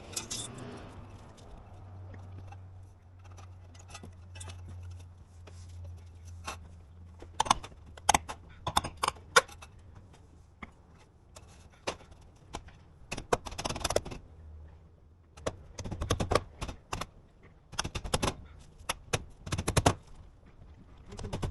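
Irregular sharp clicks and taps, some in quick clusters, over a faint low steady hum.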